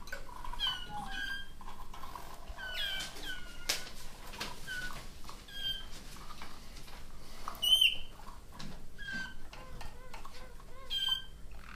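Harz Roller canaries calling: scattered short chirps that fall in pitch, with a louder one about eight seconds in and a brief run of low repeated notes after it.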